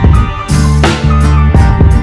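Background music with drums and a steady beat, loud throughout.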